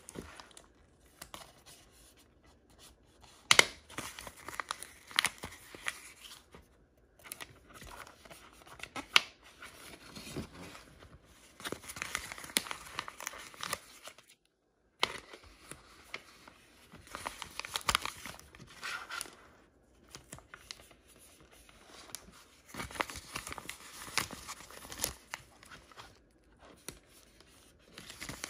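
Blind-bag and Kinder egg wrappers being torn open and crinkled by hand, in irregular bursts of rustling with a few sharp clicks. There is a short dead-silent gap about halfway through.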